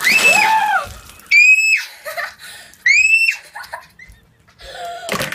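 A girl shrieking as a bowl of ice water splashes over her. The water comes down with a splash at the start under a long high shriek, then two more short high shrieks follow about a second and a half apart, and a sharp knock comes near the end.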